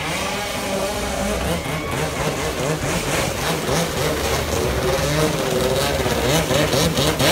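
Stand-up jet ski engine running and revving up and down as the craft skims through floodwater, over a steady hiss of spray and rushing water. It grows louder toward the end as it comes closer.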